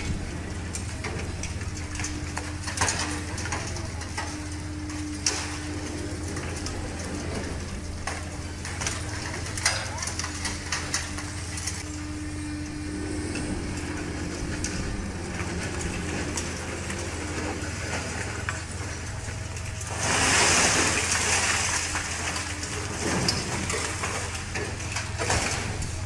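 High-reach demolition excavator running steadily while its attachment crunches reinforced concrete, with crackling and clattering of debris falling. About twenty seconds in, a louder rush of rubble falling lasts roughly three seconds.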